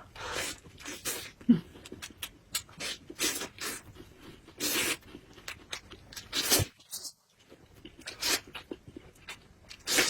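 Eating sounds: loud, irregular smacking, slurping and chewing noises from close to the mouth, with a brief silent break about seven seconds in.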